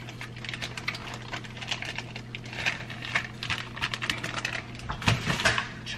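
Crinkling and crackling of a clear plastic packaging bag being handled and pulled open, with small clicks and taps of items being handled, over a faint steady low hum.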